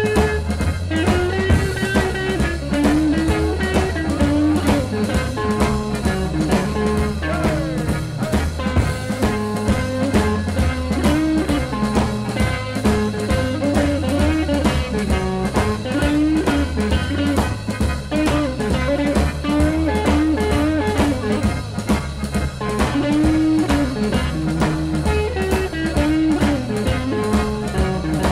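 Small jazz band playing a boogie-woogie blues number, recorded live. Drums keep a steady beat under a lead line of notes that bend up and down.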